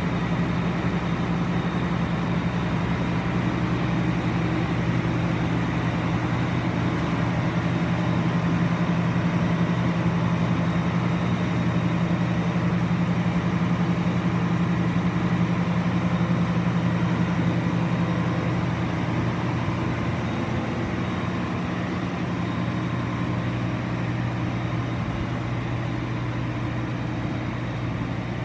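CLAAS Lexion 570 combine harvester's diesel engine running steadily, growing slightly fainter over the last third.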